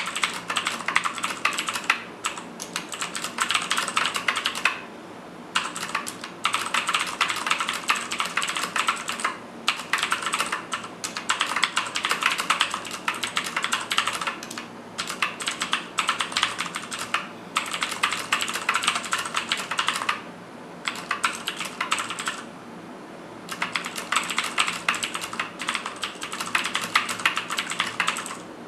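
Fast typing on a Cooler Master QuickFire XTi mechanical keyboard with clicky Cherry MX Blue switches: dense runs of rapid keystroke clicks, broken by a few short pauses.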